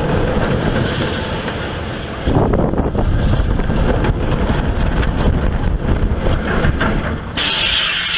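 Roller coaster train running along its track, a loud steady rumble mixed with wind on the microphone. Near the end comes a short burst of hiss lasting about a second.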